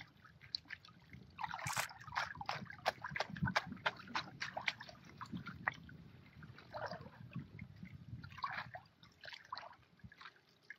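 Miner's moss sluice mat being swished and rinsed by hand in a plastic tub of water: irregular sloshing and splashing, thinning near the end to water dripping off the mat as it is lifted out.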